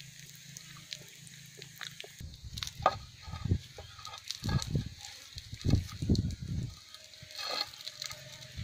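Wood fire crackling under a stone griddle, with sticks knocking and scraping as firewood is pushed in beneath it. Several low rumbling thumps run through the middle of it.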